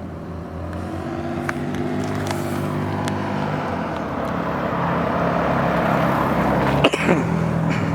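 A motor vehicle engine running steadily, growing gradually louder, with a sharp click about seven seconds in.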